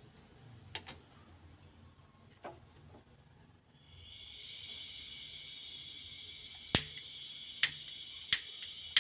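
Gas stove burner being lit: gas hissing steadily from about four seconds in, then three sharp clicks of the igniter less than a second apart near the end. Two faint knocks come before the hiss.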